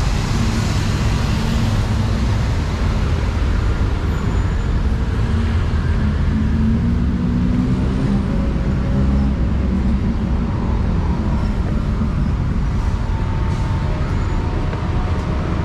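Heavy city road traffic: a steady, loud rumble of buses and cars, with one engine rising in pitch about six seconds in as it speeds up.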